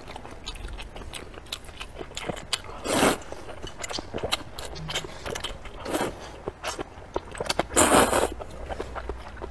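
Close-up eating sounds of spicy rice noodles in broth: two loud slurps of noodles, a short one about three seconds in and a longer one about eight seconds in, with wet chewing and small clicks in between.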